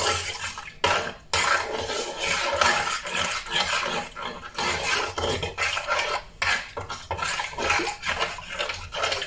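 A spoon stirring a liquid sauce in a metal bowl, scraping repeatedly against its sides, with a brief pause about a second in.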